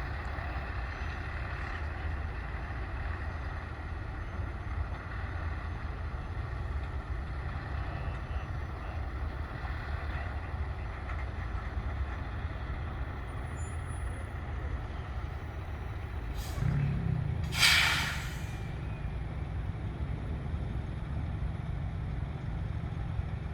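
Diesel truck engine running steadily with a low rumble, picking up briefly about two-thirds of the way through, followed by one sharp hiss of air brakes.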